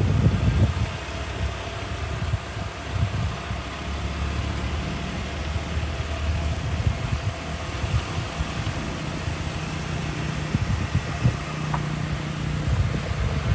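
A car engine idling or running at low revs, a steady low hum under a fluctuating low rumble.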